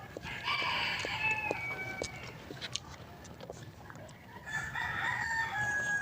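A rooster crowing twice, each crow a drawn-out call of about two seconds that drops in pitch at its end, with a few short clicks in between.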